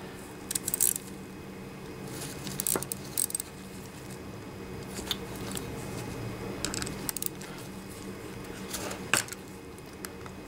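Scattered light metallic clicks and clinks of a small-engine carburetor and hand tools being handled while the float bowl is taken off, over a steady low hum.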